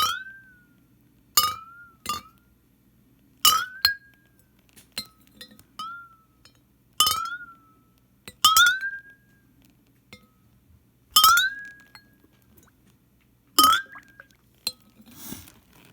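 A glass or ceramic vessel holding hot sake tapped again and again, about nine times at uneven intervals. Each tap is a sharp clink followed by a short ringing tone that rises in pitch. A short hiss comes near the end.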